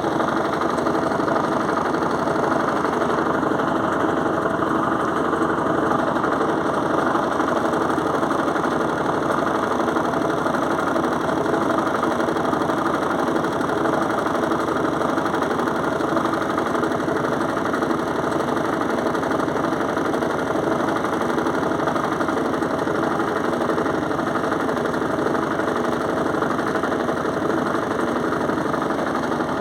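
Electrolux top-load washing machine on its spin cycle with a heavy comforter inside, running loud and steady with a fast rattling vibration. The owner found the noise alarming but thinks it is normal.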